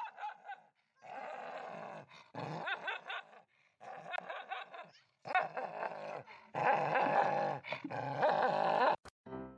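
A dog growling in a series of drawn-out, rough bouts, about six in all, each a second or so long with short breaks between them.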